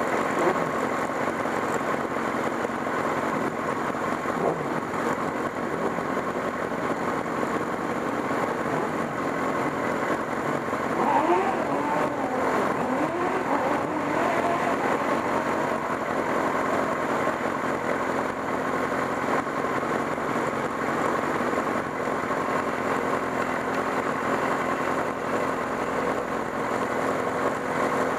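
Honda engine of a Kalì Kart racing car idling steadily while stationary, with a stretch of changing engine pitch, some revving, about eleven to fourteen seconds in.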